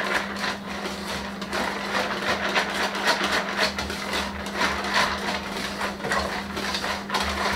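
Hand balloon whisk beating a chocolate and cream mixture in a stainless steel bowl: fast, continuous clicking and scraping of wire against metal. A steady low hum runs underneath.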